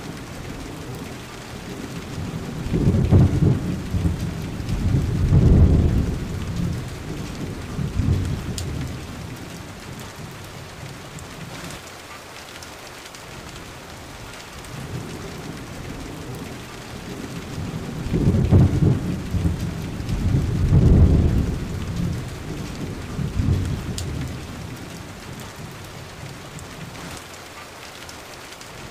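Thunderstorm: steady rain falling, with two long rolls of thunder, the first starting about three seconds in and rumbling for several seconds, the second starting about eighteen seconds in.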